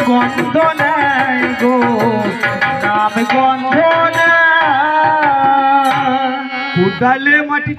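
Bengali kobigaan folk singing: a man's voice singing long, wavering held notes over a two-headed barrel drum struck by hand in a steady rhythm. The singing breaks off briefly near the end, then picks up again.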